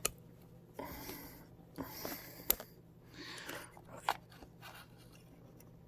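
Screwdriver prying and scraping at a fuel injector's connector retaining clip, with a few sharp clicks as the clip works loose side to side.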